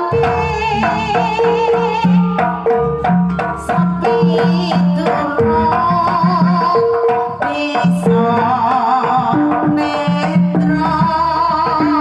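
Live Javanese jaranan gamelan music: a woman's voice singing with vibrato over kendang drum strokes and the ringing notes of kenong pot gongs struck with a mallet, with a large hanging gong in the ensemble.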